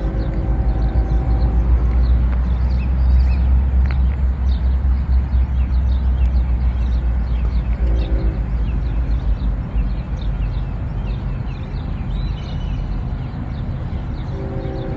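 Distant train horn blowing a multi-note chord. One long blast ends about a second and a half in, a short toot comes near the middle, and another blast begins near the end. A low rumble lasts through the first half, and birds chirp throughout.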